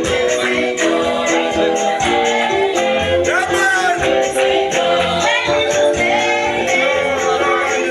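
Upbeat gospel music with singing, held instrument chords and a steady shaker or tambourine beat.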